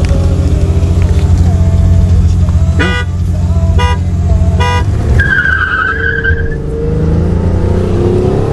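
Car engines running steadily at the start, with three short beeps about a second apart near the middle, like a start countdown. A tire squeal follows, and then the engines climb in pitch as the cars pull away.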